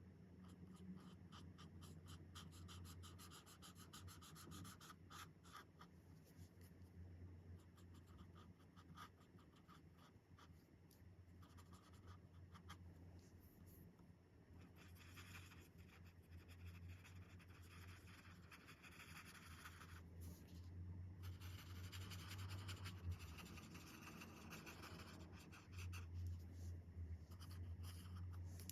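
Faint scratching of Chen Rui alcohol marker tips on coloring-book paper: quick, short strokes in the first several seconds, then longer continuous strokes of filling in color from about halfway through.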